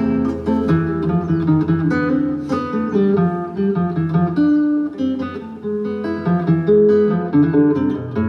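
Acoustic guitar strumming and picking a chordal accompaniment in a steady rhythm, notes and chords changing every fraction of a second.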